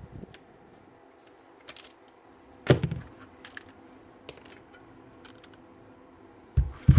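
Small hard parts of a cordless drill being handled on a workbench, most likely the worn carbon brushes being taken out: light clicks and taps, a sharp knock about three seconds in, and two more knocks near the end.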